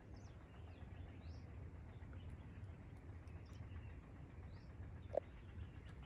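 Faint open-air ambience: scattered short, high bird chirps about once a second over a low, steady background rumble, with one brief louder note about five seconds in.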